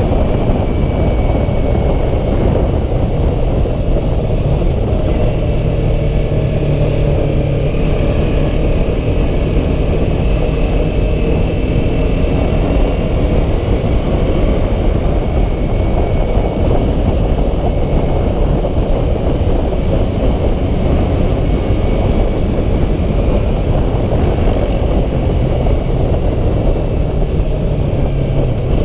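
Riding sound from a Yamaha YZF-R3 at road speed: a heavy, steady rush of wind over the microphone, with the bike's 321 cc parallel-twin engine running underneath, its note drifting slightly up and down.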